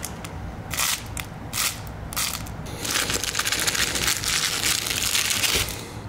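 A plush dog toy being squeezed and worked in a hand close to the microphone, giving a crinkling, crackling noise in repeated bursts.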